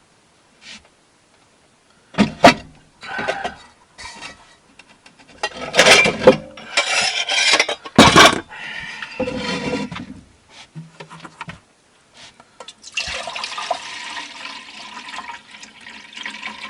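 Pots and kitchen utensils clanking a few times, then a steady pour into a pot from about three seconds before the end.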